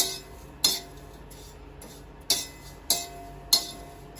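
A metal spatula knocking and scraping on a steel pan while stirring crisp-roasted dried baby prawns: about five sharp clinks at uneven intervals, each followed by a brief ring from the pan.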